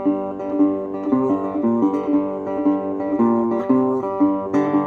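Acoustic guitar strummed, playing a steady run of chords with no singing.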